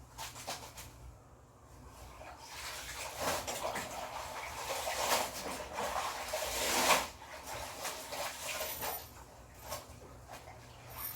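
Clothes being washed by hand in water: sloshing and fabric rubbing. It builds from about two seconds in, is loudest around five to seven seconds, then drops back.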